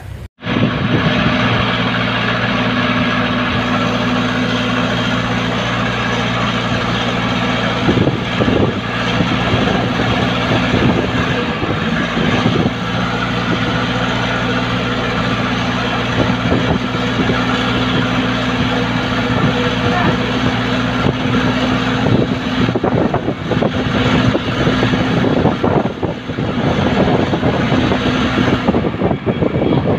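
JCB backhoe loader's diesel engine running steadily at a constant pitch as its front bucket pushes against the hull of a beached fishing trawler.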